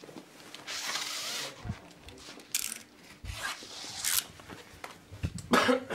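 Blue airtightness tape being pulled off its roll: one long rip about a second in, then three short quick rips, with rustling and a few low knocks from handling.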